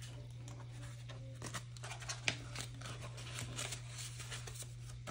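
Faint rustling and light clicks of paper dollar bills and clear plastic binder pockets being handled, over a steady low hum.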